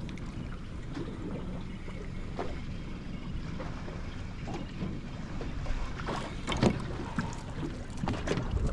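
Water lapping against a small boat's hull, with wind on the microphone and a few light knocks, more of them near the end.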